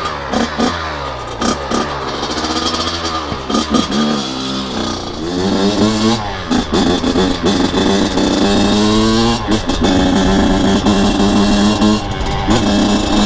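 Freshly rebuilt Kawasaki KX100 single-cylinder two-stroke dirt bike engine revving up and down in repeated throttle blips, then running at a steadier, higher pitch from about five seconds in. The engine is being run gently during break-in.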